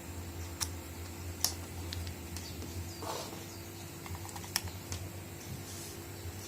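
A few scattered light clicks and taps, a brief soft rustle about three seconds in, over a steady low hum.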